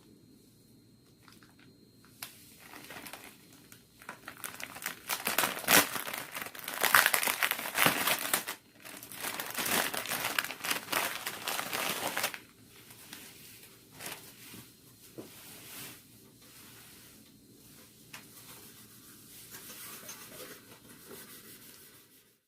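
Irregular crinkling and rustling of something like plastic or paper being handled, loud through the first half and then dropping to softer, scattered handling noises.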